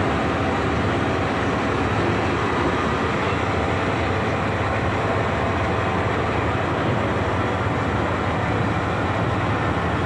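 Passenger boat's engine running steadily under way, heard on board as a loud, even drone with the rush of the boat through the water.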